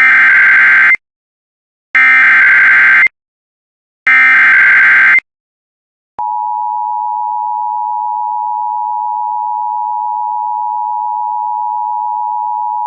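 Emergency Alert System SAME header: three bursts of warbling data tones, about a second each and two seconds apart. About six seconds in, the steady two-tone EAS attention signal (853 and 960 Hz) begins, marking the start of an emergency alert broadcast.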